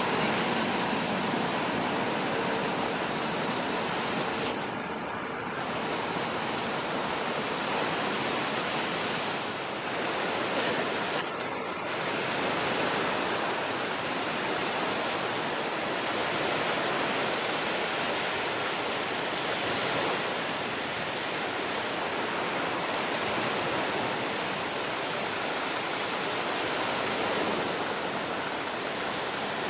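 Steady rushing wash of sea surf on the beach, with brief dips about five and eleven seconds in. A faint steady engine tone fades out in the first second or two.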